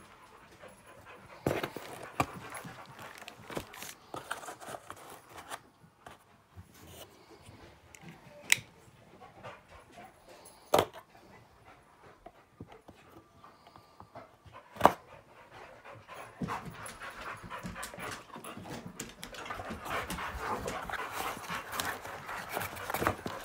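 A dog panting, growing louder and more constant in the second half, with a few sharp knocks and clicks from handling the sword box.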